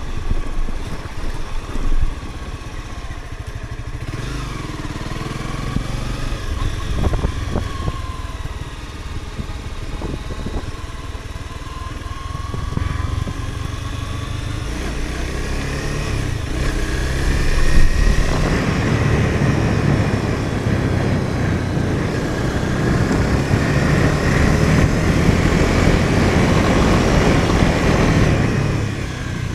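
Car engine running with revs rising and falling while driving a rough off-road track, with a few knocks from bumps. Road and tyre noise grows louder about two-thirds of the way in.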